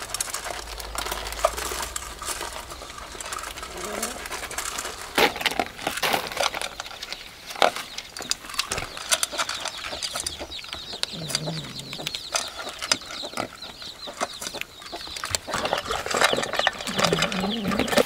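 A dog and tabby cats eating dry kibble: irregular crunching and small clicks of food against an enamel bowl and a bamboo tray. Chickens cluck in the background.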